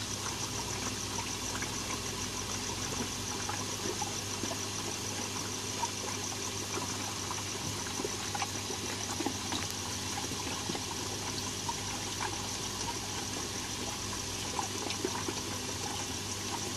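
Steady trickle of running water in an aquaponics system, with a faint low hum and scattered small ticks.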